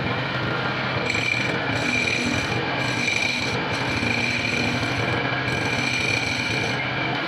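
Metal being worked on a running lathe: a steady whine under a scraping rasp that comes and goes in stretches about a second long, stopping at the end.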